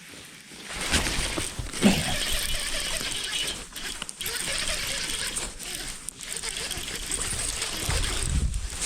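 Fishing reel clicking and whirring as line is worked during a fight with a hooked bass.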